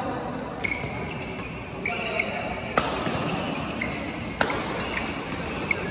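Badminton rally: several sharp racket-on-shuttlecock hits about a second apart, with short squeaks of court shoes on the mat and background chatter.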